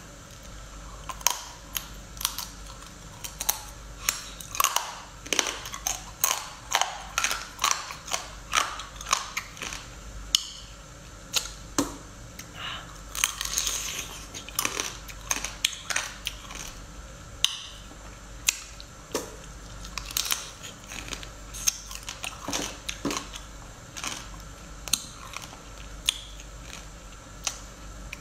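Seafood being eaten close to the microphone: a long run of irregular short clicks and crunches of biting and chewing, several a second at times, with brief gaps between.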